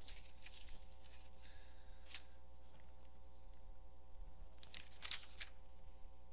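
Low, steady electrical hum on the recording, with a few brief faint noises about two seconds in and again around five seconds in.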